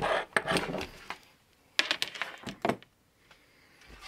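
Handling noise: two spells of rustling with sharp clicks as a fabric LED therapy cap and its battery cable are moved about on a wooden desk, then quiet.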